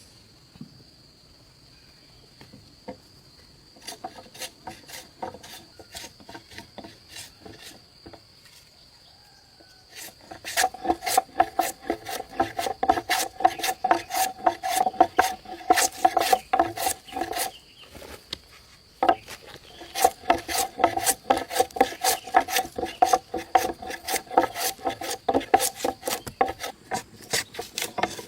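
A hand tool rasping back and forth on wood in quick, even strokes, several a second. Faint at first, it grows much louder about ten seconds in and stops briefly about two-thirds of the way through before carrying on.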